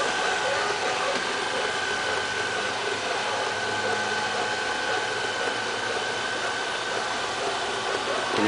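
Robot vacuum cleaner running: a steady whirring hum of its suction fan and brushes, with a thin steady whine.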